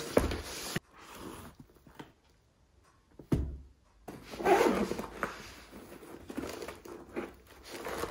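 Unpacking noise: rustling and a few knocks as the accessory kit is taken out of its shipping bag, with a stretch of near silence in the first half.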